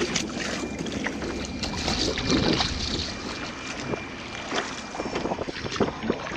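A small dinghy being rowed with wooden oars: water washing and splashing, with a few short knocks from the oars, under wind rumbling on the microphone.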